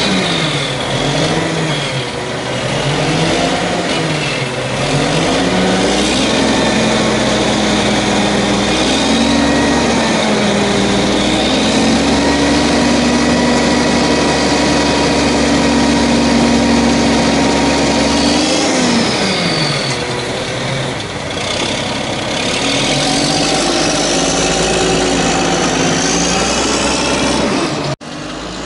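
Natural-gas (LNG) engine of a 1994 WhiteGMC WX-64 garbage truck being revved while parked. The revs rise and fall several times, are held up for over ten seconds, drop back, then climb and fall again.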